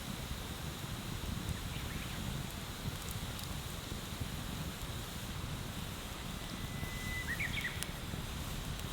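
Bonfire burning with a few sharp crackles, over a steady low rumble. About seven seconds in, a bird gives a short call: a thin held whistle breaking into a quick run of notes.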